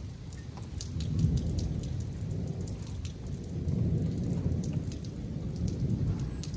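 Thunder rumbling in two slow swells during a rainstorm, with scattered ticks of raindrops.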